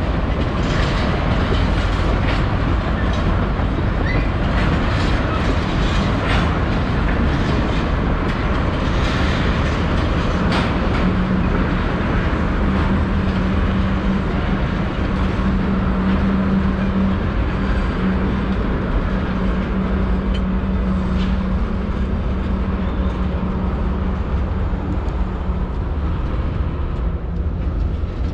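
EMD SD40-2XR diesel-electric locomotive and freight cars moving during switching: a steady diesel rumble with irregular clicks and clacks of wheels over rail joints. A steady low hum joins in about eleven seconds in and fades out near the end.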